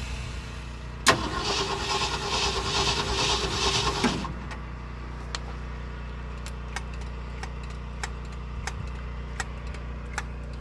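A 1972 Ford F-250 truck's V8 cranked by the starter for about three seconds, beginning with a sharp click, then stopping without the engine firing. It is a no-start, with the carburetor's fuel delivery under suspicion. After that come a few faint, irregular ticks.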